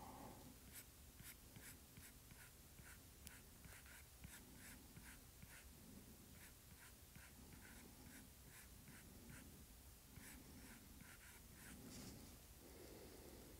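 Faint stylus strokes on a tablet's glass screen: short, quick scratches repeating at about three a second, pausing near the end.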